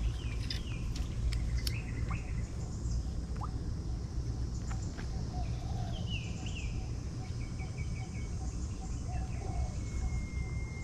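Birds calling: short chirps that slide downward, in small clusters, with a quick run of notes about six seconds in and a long even whistle near the end, over a steady low rumble.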